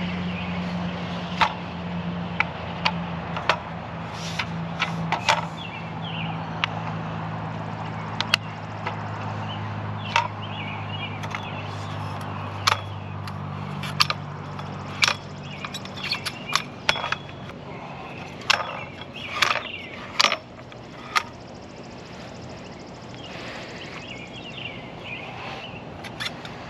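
Irregular sharp knocks and clatter of the saw legs and the metal downspout being set up and handled, over a low steady engine hum that fades out about twenty seconds in.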